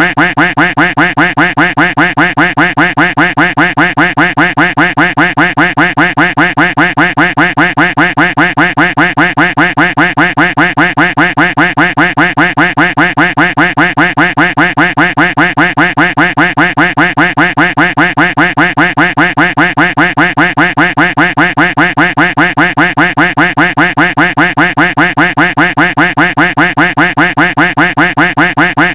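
A duck quack sound effect looped without a break, the quacks repeating rapidly and evenly at about three a second.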